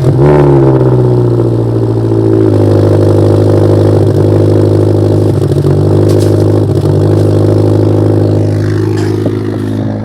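Subaru STI's flat-four engine firing up with a brief rev flare, then settling into a steady, very loud idle.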